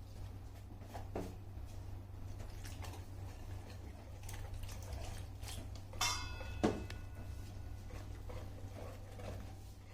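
Spoon stirring a thick masala batter of flour and spices in a bowl, with soft scraping and squishing, and water being worked in. About six seconds in the spoon clinks against the bowl with a short ring, then knocks once; a low steady hum runs underneath.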